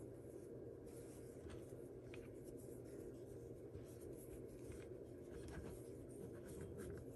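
Faint rustling and scratching of yarn being pulled and knotted by hand, the strands rubbing against the pegs of a wooden sock loom, in soft scattered scrapes over low room hum.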